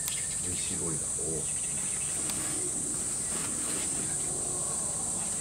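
Steady high-pitched drone of summer insects, with faint voices of people talking in the background.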